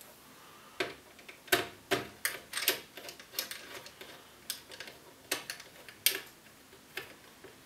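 Irregular light clicks and taps of small metal parts, about a dozen, as a CPU cooler's mounting arm and its loose screws are fitted and screwed onto the motherboard.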